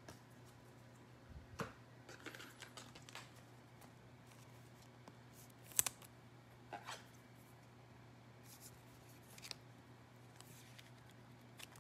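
Soft scattered clicks and short rustles from trading cards and foil packs being handled, the sharpest click about six seconds in, over a steady low hum in a quiet room.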